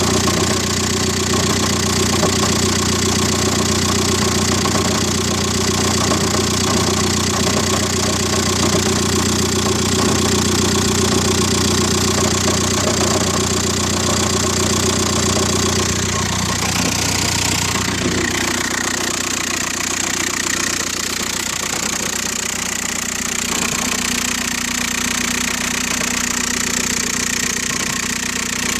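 2004 VW Golf TDI's 1.9-litre BEW diesel idling, with a noise from the manual transmission, which the owner notes goes quiet with the clutch pedal held fully down. About eighteen seconds in, the low drone drops away and the sound changes.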